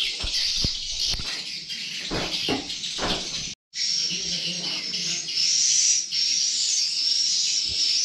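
Dense, continuous high chirping of swiftlets, with a few low knocks of handling in the first three seconds; the sound breaks off for an instant about three and a half seconds in.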